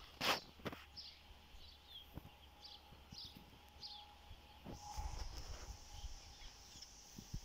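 Quiet outdoor ambience on a lawn: a brief rustle of the dogs moving in the grass near the start, then scattered faint high chirps, with wind rumbling on the microphone in the second half.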